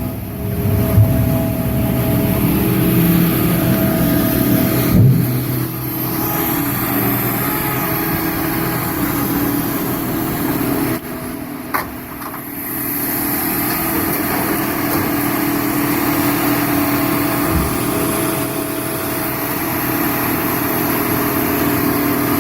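Al-jon 580 car logger/baler running, its engine holding a steady note, with a couple of short knocks in the first five seconds and a brief drop in level about halfway through.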